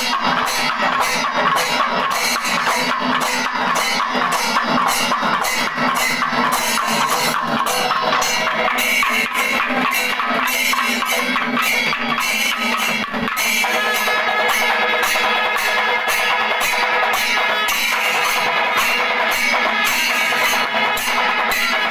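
Panchavadyam ensemble playing: fast, even drum strokes from timila and maddalam with ilathalam cymbals clashing on the beat. The sound fills out a little louder a little over halfway through.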